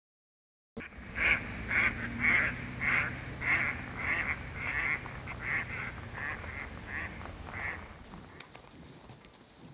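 Waterfowl calling: a run of about a dozen quacking or honking calls, roughly two a second, starting about a second in and fading out near the end, over a low steady hum.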